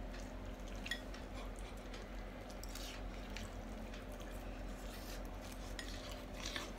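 Faint, scattered clinks of cutlery against glass bowls and quiet sounds of eating noodles, over a low steady hum.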